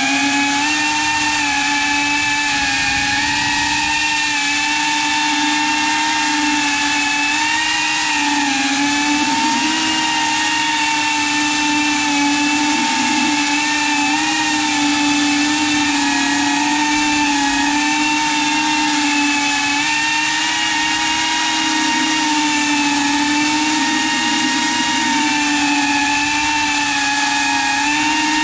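iFlight ProTek35 cinewhoop FPV drone's brushless motors and ducted 3.5-inch propellers whining steadily in flight, the pitch rising and falling slightly as it flies.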